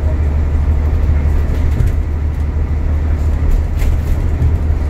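Alexander Dennis Enviro400 MMC double-decker bus driving at speed, heard from inside the upper deck: a steady, loud low rumble of engine and road noise.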